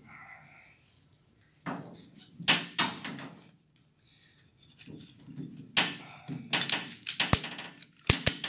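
Ratchet strap being cranked tight, its pawl clicking, pulling a bent door in against a wooden block. A few loud clicks about two seconds in, then a quicker run of clicks from about six seconds in to the end.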